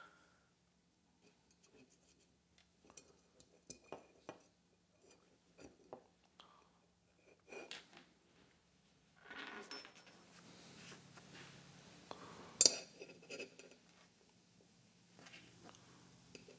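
Small steel pistol parts, the sear and disconnector of a 1911, clicking and clinking faintly as they are picked up and handled against the frame on a workbench. A soft rustle runs through the middle, with one sharper metallic click about three-quarters of the way through.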